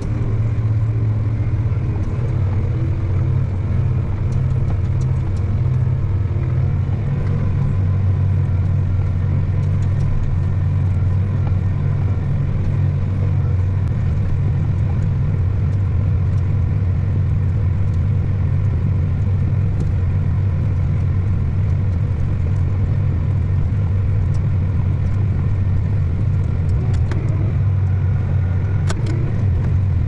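John Deere tractor's diesel engine running steadily under load while pulling a tandem disc harrow through tilled soil.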